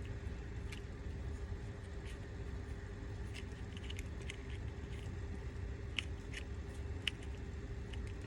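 Small scattered metallic clicks and scrapes of side cutters gripping and working a roll pin out of a plastic part, over a steady low hum. The sharpest click comes about seven seconds in.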